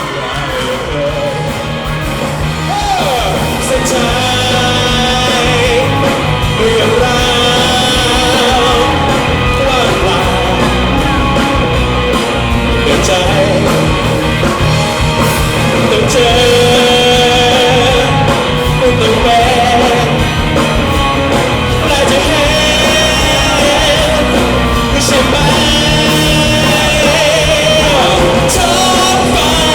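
Live band music with a male lead singer belting a rock-style song, loud and steady with a driving beat.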